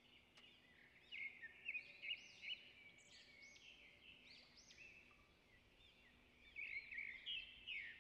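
Faint birds chirping in the background: clusters of quick, repeated high chirps, loudest about a second in and again near the end, over a faint steady low hum.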